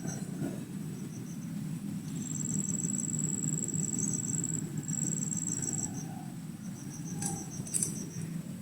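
Insects trilling in a rapid, high-pitched pulsing chorus, with a steadier high whine from a second insect for a few seconds in the middle.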